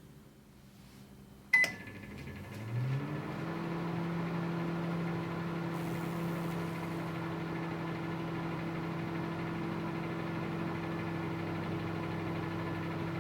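A microwave oven beeps once as it is started. Its hum then builds over about a second and runs steadily.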